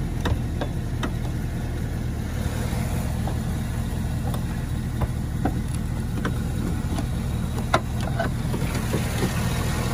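GMC Yukon Denali's V8 engine idling steadily, with scattered light clicks and taps, the sharpest about eight seconds in.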